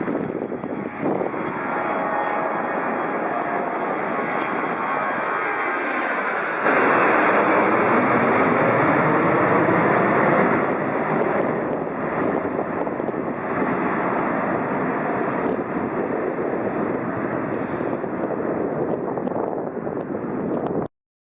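Jet airliner engines running loudly at close range. The noise jumps suddenly louder about seven seconds in, eases off a few seconds later, and cuts off abruptly just before the end.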